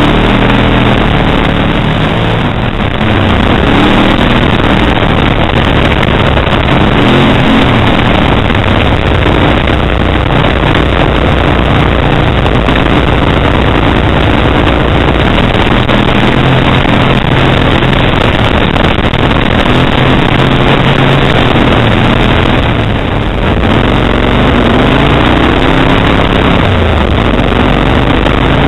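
Kawasaki Brute Force 750 ATV's V-twin engine with a Muzzy aftermarket exhaust running under way, its note rising and falling with the throttle over a constant rush of noise, with a brief drop in level a little past the middle.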